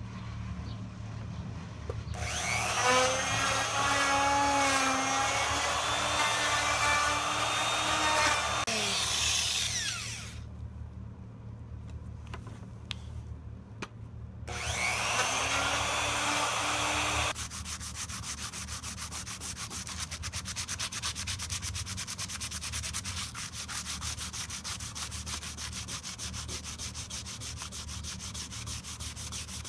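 Handheld electric router routing a recess in a wooden tray: the motor spins up about two seconds in, cuts for several seconds and winds down, then runs again briefly. After that comes a long stretch of fast, even rubbing strokes over the routed wood by a gloved hand.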